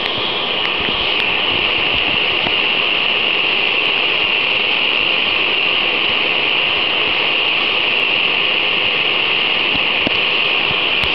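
Vintage 1980s Optimus 199 pressure stove burning Coleman fuel (white gas) through its M jet: a steady, loud, high rushing hiss from the burner flame.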